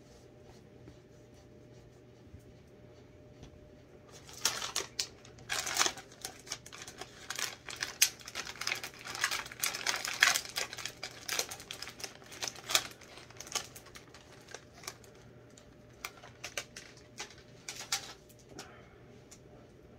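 Plastic cookie packet crinkling and crackling as it is handled and opened, starting about four seconds in and going on irregularly until near the end.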